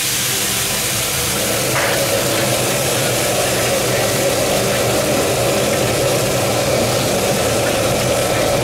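Mahi mahi steaks sizzling in hot oil in a wok, over the steady rush of a gas wok burner running at full flame.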